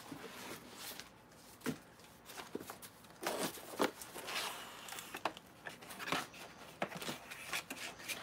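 Rustling of packaging and scattered light clicks and knocks as items are handled and lifted out of a storage tote, busiest around the middle.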